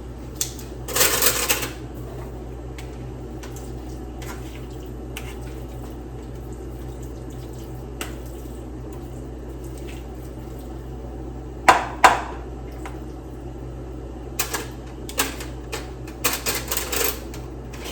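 Kitchen tongs clicking and tapping as pieces of salmon are lifted from a container into a parchment-lined air fryer basket: scattered short clicks, a brief scrape about a second in and a quick run of clicks near the end, over a steady low hum.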